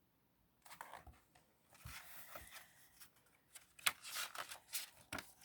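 Soft rustling and light clicks of paper being handled, typical of a picture book's page being turned, starting about a second in.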